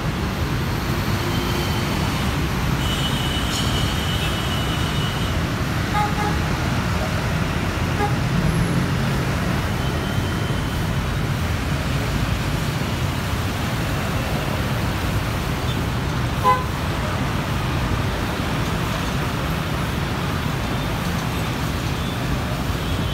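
Steady road traffic noise. A short high tone sounds about three seconds in, and a single sharp knock comes about sixteen seconds in.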